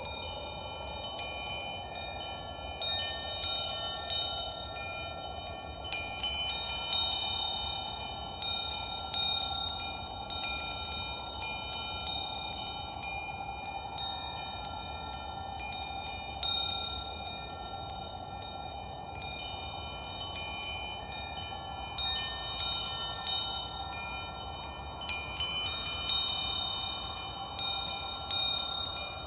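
Metal wind chimes ringing, several clear high tones struck at random moments and left to ring on, with louder clusters of strikes about six seconds in and near the end. A steady soft rushing sound runs underneath.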